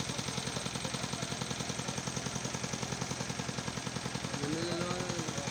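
An engine running steadily with an even, rapid thudding of about ten beats a second, under crowd chatter. A voice rises above it near the end.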